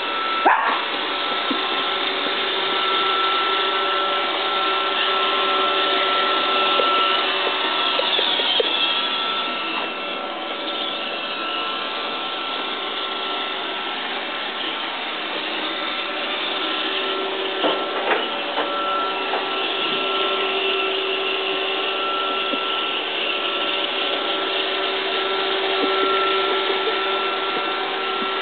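Robot vacuum cleaner running steadily, its motor and brushes making a continuous whirring hum with a steady high whine. A few brief knocks stand out near the start, about a third of the way in and past the middle.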